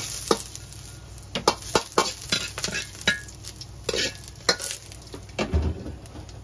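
Metal ladle clinking and scraping against an iron wok as chopped garlic sizzles in chicken fat, the wok lifted off the heat to keep the garlic from burning. A heavier low knock about five and a half seconds in, as the wok goes back down.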